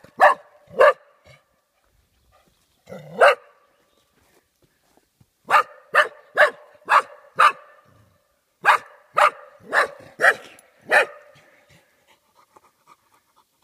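Golden cocker spaniel barking in alarm at a cardboard cutout: a couple of sharp barks, a single one, then two quick runs of about five barks each, each run about two barks a second, stopping near the end.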